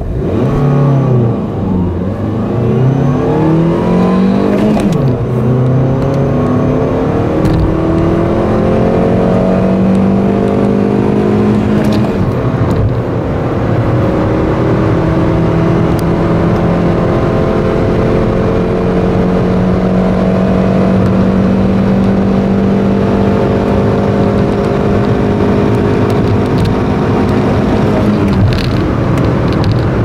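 2014 Ford Ka's 1.2-litre four-cylinder petrol engine accelerating hard, heard inside the cabin. The engine note rises in pitch through each gear and drops back at the upshifts over the first dozen seconds or so, then climbs slowly through a long high gear at high revs.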